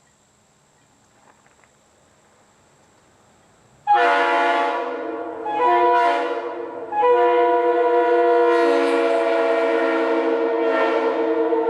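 Multi-chime locomotive air horn sounding a chord of several steady notes. It starts about four seconds in, sounds two short blasts and then holds a long third blast.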